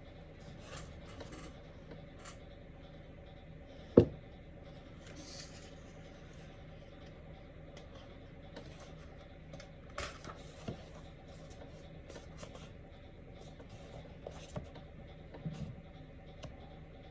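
Paperback book pages being handled and turned, with soft paper rustles and fingers rubbing on the pages. A single sharp knock about four seconds in is the loudest sound, and there are a few smaller clicks and rustles later.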